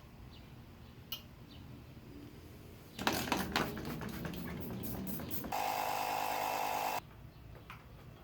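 Clattering and knocking, then a small motor hums steadily for about a second and a half and cuts off abruptly.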